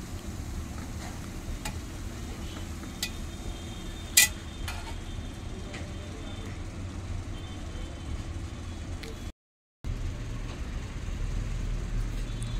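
Metal tongs clinking against the rim and sides of a pressure cooker as boiled potatoes are lifted out: a string of separate sharp clinks, the loudest about four seconds in, over a steady low rumble.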